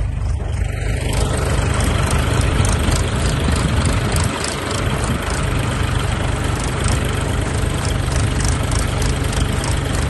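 Tractor diesel engines running steadily under load as a John Deere 5045 pulls a potato harvester, with a heavy low rumble and the clatter of the digging machinery.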